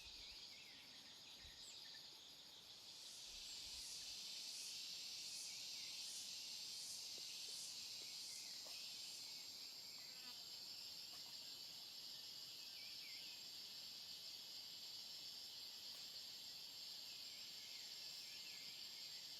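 Faint insect chorus: a steady, high, continuous trilling of crickets or cicadas that swells up about three seconds in and holds, with a few short chirps over it.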